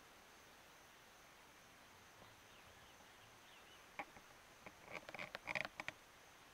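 A faint steady high insect buzz over near silence. From about four seconds in comes a burst of sharp clicks and knocks, densest and loudest about a second later.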